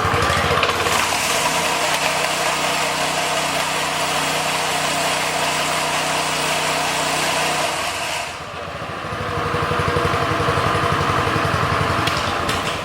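Robin 6-horsepower single-cylinder engine on a 36-inch power trowel running with a pulsing beat at low speed. About a second and a half in it rises to a steadier, higher speed, then drops back about eight seconds in and returns to the pulsing low-speed run.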